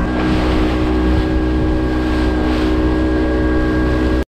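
Yamaha Enduro 75 two-stroke outboard on a panga running at a steady speed, with a rushing hiss of water and wind over it. It cuts off suddenly near the end.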